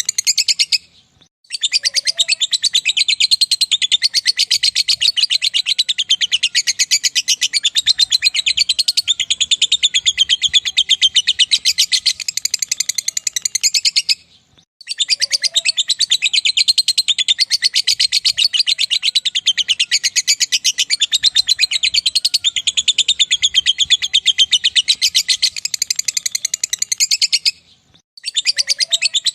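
Lovebird giving its long, rapid, high-pitched chattering trill, the 'ngekek' song, broken by short pauses about a second in, around the middle and near the end.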